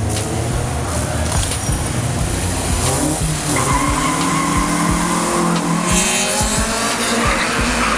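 Two street-race cars launching side by side from a burnout, engines revving hard and tyres squealing; the revs climb about three seconds in and a steady high tyre squeal carries on from about halfway.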